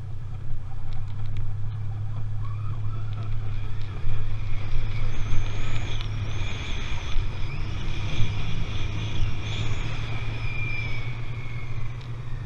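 Snowmobile engine and track running steadily while the machine is ridden down a steep snow slope, with a high whine that wavers and falls away near the end.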